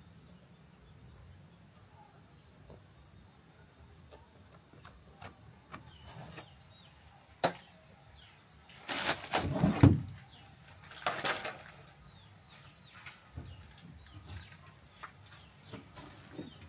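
A thin, steady high insect drone with scattered light taps, a sharp click about seven and a half seconds in, then two loud bursts of scraping and rattling about nine and eleven seconds in as the blue plastic boat hull on its metal frame is handled.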